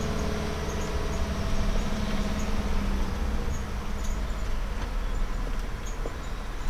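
Diesel campervan driving slowly, heard from inside the cab: a steady low engine and road rumble whose engine hum eases off over the first few seconds, with scattered light ticks.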